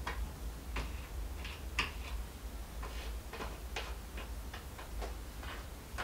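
Light, irregular ticks as the tip of a telescopic magnet pickup tool taps on copper injector washers lying on cardboard, testing them for magnetism; none of them sticks, since they are copper.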